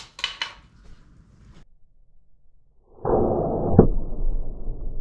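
A few small clicks in the first half second. About three seconds in comes a dull rush that ends in a sharp knock near the four-second mark: an 80-lb pistol crossbow bolt striking the foam target.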